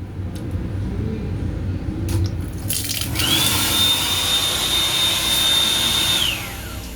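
A motorised fixture in an M7 railcar restroom starts with a loud rush, its whine rising to a steady high tone. It runs for about three seconds, then winds down with a falling whine, over a steady low rumble.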